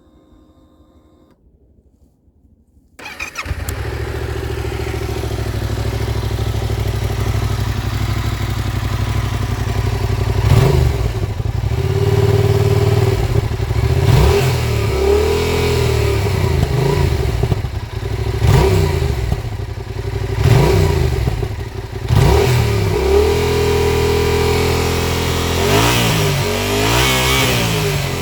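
Yamaha MT-07's 689 cc parallel-twin engine on its stock exhaust, started warm about three seconds in. It idles steadily, then is blipped over and over, the revs rising and falling, with a quick run of blips near the end.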